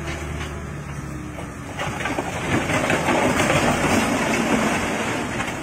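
Dump truck engine running steadily while its raised bed tips out a load of crushed stone. From about two seconds in, the rocks sliding off the bed and crashing onto the pile make a loud, rushing clatter that drowns out the engine.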